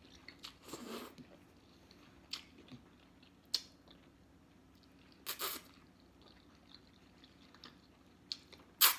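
Ramen noodles being eaten: quiet chewing with a few short slurps, the loudest one near the end.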